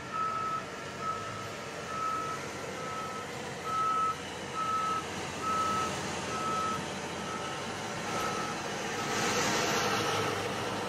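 Ground service vehicle's reversing alarm beeping about once a second over a steady background hum. Near the end the beeps fade and a rushing hiss swells.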